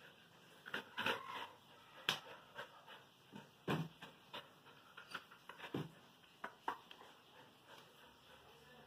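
A German Shepherd's paws and claws tapping and knocking against a mirror and its wooden cabinet as it paws at its reflection: irregular short clicks and a few duller thumps, the loudest about one, two and four seconds in.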